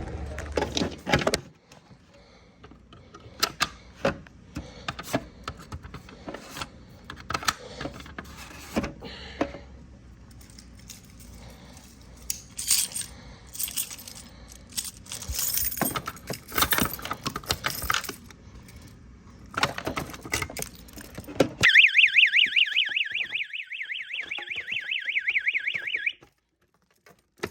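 Irregular metallic clicking and clinking for most of the stretch. Then an electronic fire alarm tone warbles rapidly between two high pitches for about four seconds and cuts off abruptly.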